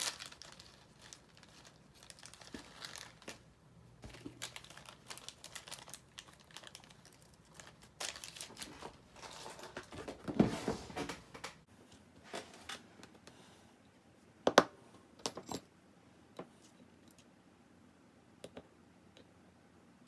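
Hands handling small paintball regulator parts and tools: irregular rustling with scattered light clicks, busiest near the middle, with a few sharper clicks a little later.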